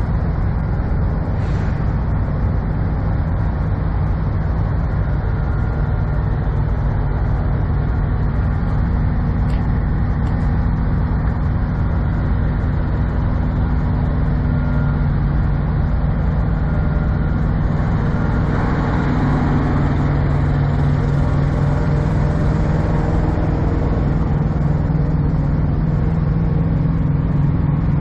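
Diesel semi-truck engines idling: a steady low hum that keeps an even pitch.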